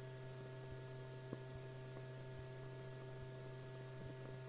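Steady low electrical hum with a few faint clicks, the background noise of an old wartime film soundtrack between lines of narration.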